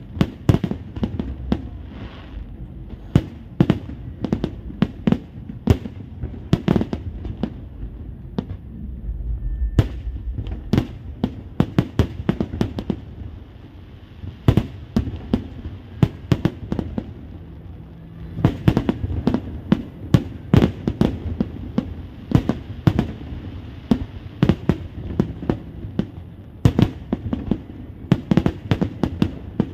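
Aerial fireworks going off in rapid succession: a dense run of sharp bangs and crackles over a low rumble, thinning out briefly about halfway through before building up again.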